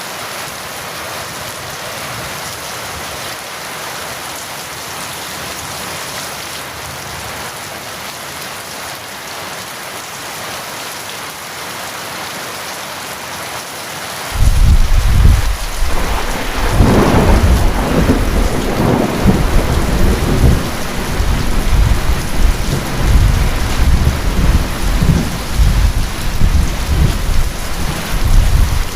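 Steady rain, then about halfway through a loud crack of thunder breaks in and a deep rumble rolls on under the rain to the end.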